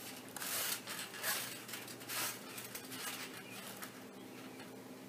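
Rustling and scuffing of a person climbing onto a trampoline mat and handling a plastic water bottle, in irregular bursts that die away after about two and a half seconds.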